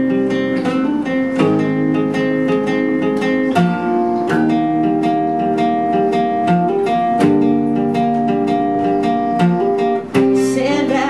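Acoustic guitar strumming chords: the instrumental intro of a pop song played live, with a regular strum and chord changes every second or two.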